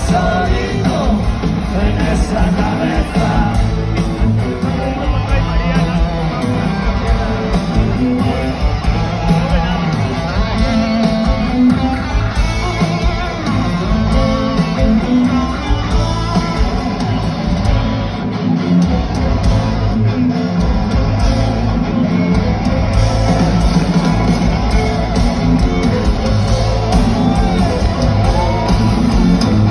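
Live rock band playing in a large hall, with electric guitar, bass, drums and a voice singing.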